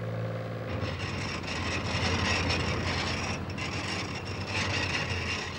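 Fishing boat's deck hauler (winch) running: a steady low hum with a busy mechanical clatter over it. It starts about a second in and stops just before the end.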